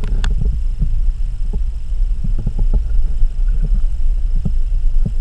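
Loud low rumble of moving water heard through an underwater camera housing, with scattered faint ticks and clicks.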